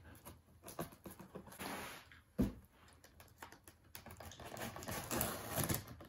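Hands on a cardboard shipping box, scratching, tapping and picking at the packing tape in a run of small clicks and rustles, with a single thump about two and a half seconds in.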